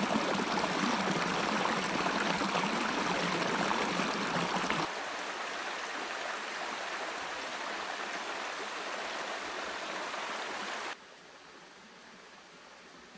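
Small forest stream splashing and rushing over mossy rocks in a little cascade, a steady noise of running water. It drops abruptly in level about five seconds in, and again near the end to a fainter flow.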